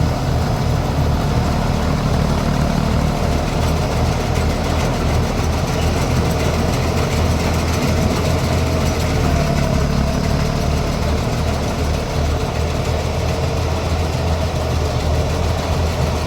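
Combine harvester engine running steadily at a constant speed.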